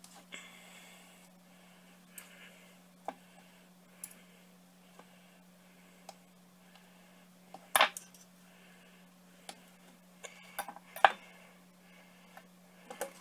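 Metal forks clicking and scraping against each other and on paper plates while slow-cooked chicken is pulled off the bone: scattered light clinks, loudest about eight seconds in and again around eleven seconds, over a steady low hum.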